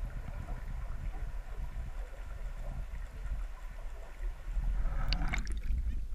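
Muffled underwater water noise on a camera housing's microphone: a steady low rumble with gurgling, then a burst of splashing and sloshing about five seconds in.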